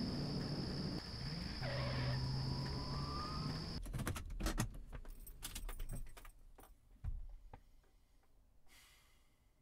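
A steady hum with a high steady whine cuts off sharply about four seconds in. Then keys jangle and click for about two seconds inside a car, followed by a few soft knocks and a brief rustle.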